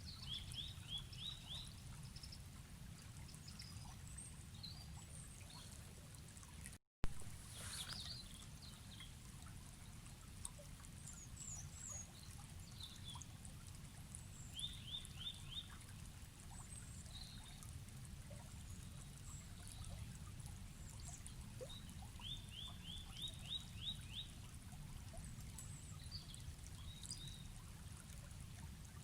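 Steady rush of a forest river, with birds calling over it: a short run of four to six quick high chirps comes back several times, and other single chirps are scattered between. About seven seconds in the sound drops out for a moment and comes back with a sharp click.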